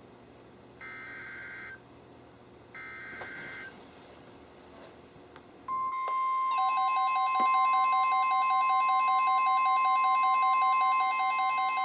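Two bursts of NOAA Weather Radio SAME digital header data, each a buzzy warbling screech about a second long, marking the start of an Emergency Alert System message. After about two seconds of hiss the steady 1050 Hz weather radio warning alarm tone comes on. A moment later, alert receivers set off by it start rapid pulsing alarm beeps at several pitches over the tone.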